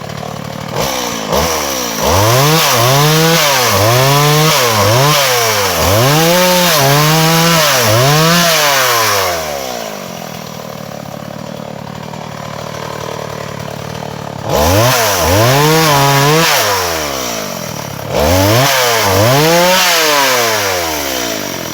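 Two-stroke chainsaw revving up and down in repeated surges as it cuts into a dense, hard log of dry matataúba wood. It settles back to idle for a few seconds partway through, then revs up and cuts again.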